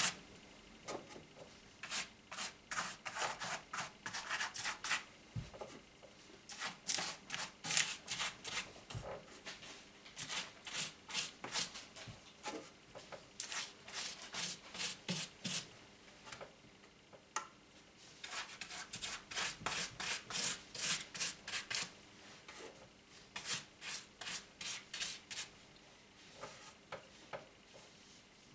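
Stiff paintbrush dry-brushing grey paint onto a rough, rock-textured foam wall, a quick scratchy stroke about three to four times a second. The strokes come in runs of a few seconds with brief pauses between.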